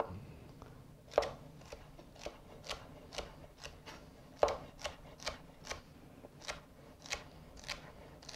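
Chef's knife dicing celery on a wooden cutting board: a run of sharp chops, about two a second, starting about a second in, with two strikes louder than the rest.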